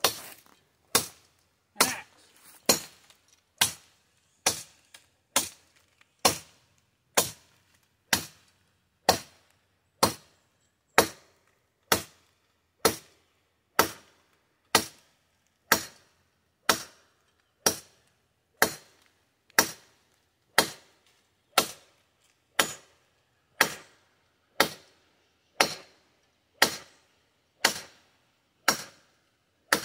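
Sword blade hacking into a tree branch, about thirty sharp chops at a steady pace of roughly one a second.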